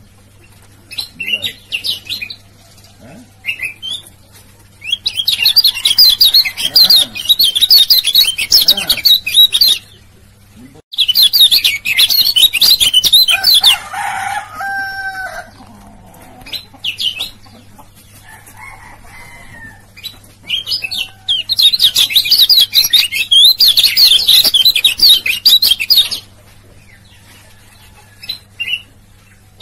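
Male kecial kuning (yellow-spectacled white-eye) singing its ciak-ciak song: bouts of rapid, high chattering notes several seconds long, with short calls in between. A lower, shorter call sounds about halfway through.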